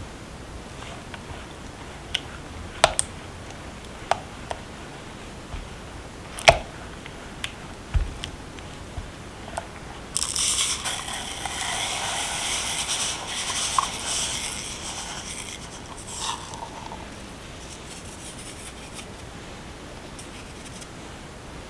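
Silicone spatula stirring a runny banana, oil and soy milk mixture in a glass bowl: scattered light clicks and taps against the glass, then about six seconds of steady scraping and swishing from about ten seconds in.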